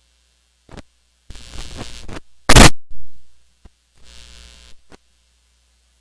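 Faulty sound system audio: a steady low mains hum with several bursts of static crackle, and one loud pop about two and a half seconds in that dies away over most of a second.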